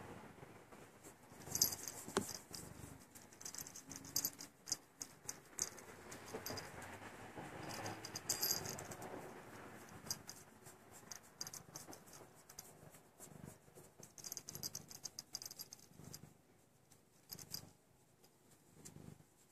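Close rustling and crackling as a hand strokes a cat's fur and cloth shirt right by the phone's microphone, with scattered small clicks and pops that thin out near the end.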